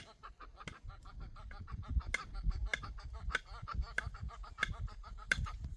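Domestic fowl calling, a rapid run of short, sharp calls several times a second, over a low rumble.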